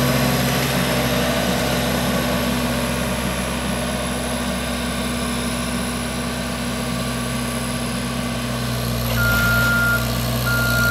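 Caterpillar 257B compact track loader's diesel engine running steadily, growing louder about nine seconds in. Its reversing alarm then starts beeping, with long even beeps about a second apart, as the machine backs up.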